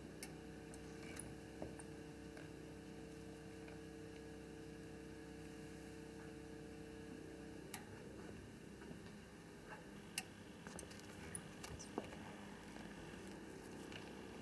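Faint mechanical clicks from a foot-pedal-operated foil welding tongs being worked to heat-seal plastic bags. A faint steady hum cuts off with a click about eight seconds in, and several sharp, separate clicks follow.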